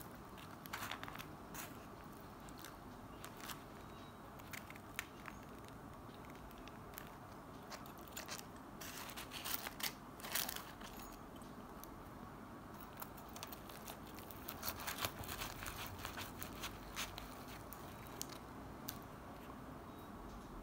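Metal knife and fork cutting fried food on a disposable tray: scattered sharp clicks and scrapes of cutlery against the tray, with crisp crunches, bunched into a few busy spells.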